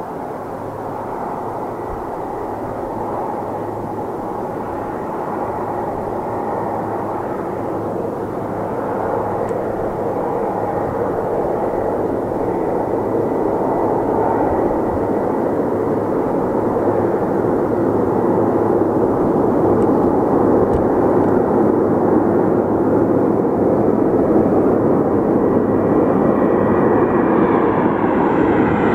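Antonov An-26's twin Ivchenko AI-24VT turboprops droning on landing approach, growing steadily louder as the aircraft closes in, with a steady low hum under the engine noise and a whine rising in pitch near the end.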